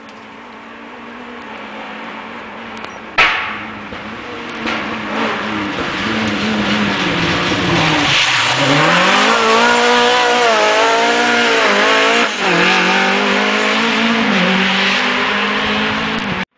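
Škoda 130 LR rally car's engine running hard as it approaches and passes close, getting louder, with the revs dropping and climbing again twice. A single sharp bang about three seconds in is the loudest moment.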